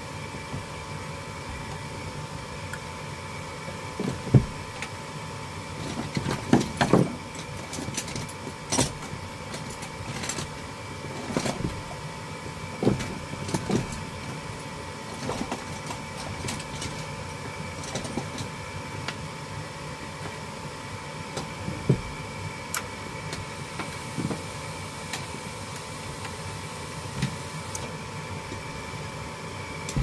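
Gas furnace draft inducer fan motor running with a steady whine, while irregular clicks and knocks come and go from handling at the open cabinet, the loudest about four seconds in. The inducer runs but no ignition follows: the furnace's igniter is not lighting.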